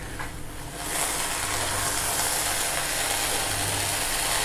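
Vermicelli upma sizzling in a hot kadai as it is stirred with a wooden spatula: a steady hiss that starts about a second in and holds level.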